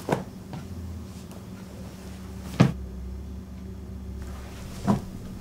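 Three dull knocks on a table, the loudest about halfway through, as a rolled paper map is spread out and weighted down with wooden blocks. A faint steady hum lies beneath.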